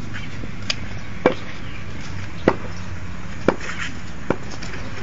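A series of five short, sharp knocks at uneven intervals, roughly a second apart, over a steady low background hum.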